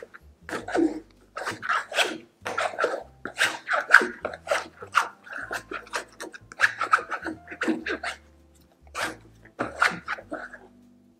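Sticky, high-hydration bread dough being worked by hand and with a plastic bench scraper on a silicone mat: a run of short wet squishing and scraping strokes, a few a second, which die away about a second before the end.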